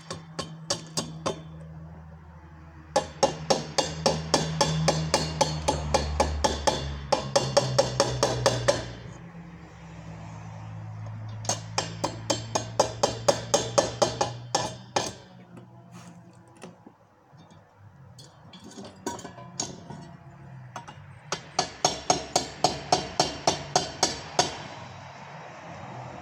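Chipping hammer knocking slag off a fresh E6013 arc weld bead on steel tubing: three runs of quick, sharp metal taps, several a second, with short pauses between them.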